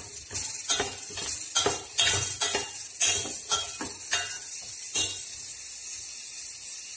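Steel ladle stirring and scraping in a stainless-steel pot of jaggery dissolving in water over low heat, with many quick clinks and knocks against the pot. The clinks stop about five seconds in, leaving a steady high hiss.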